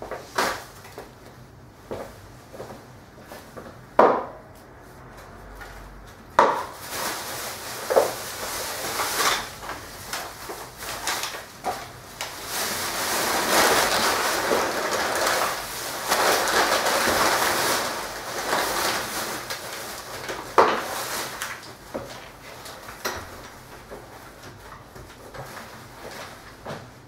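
A black plastic bin bag rustling loudly for several seconds around the middle as it is handled. Scattered knocks and thuds of footsteps and handling on a wooden floor come before and after the rustling.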